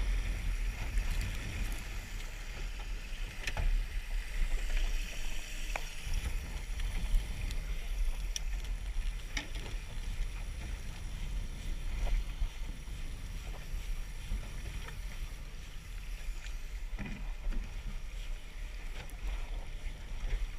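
Small boat underway: a steady low rumble with an even hiss of water and wind, and a few scattered light knocks.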